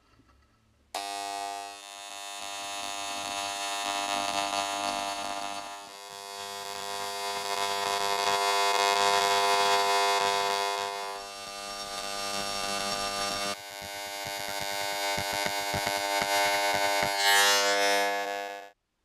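Electric engraving pen buzzing as its tip scribes detail into the steel of an axe head. It starts suddenly about a second in, swells and dips in level as the tip works, and cuts off near the end.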